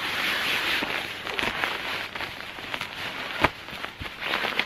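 Nylon fabric rustling and crinkling as an inflated sleeping mat is pushed into a hammock's sleeve pocket, with scattered sharp clicks and a louder snap about three and a half seconds in.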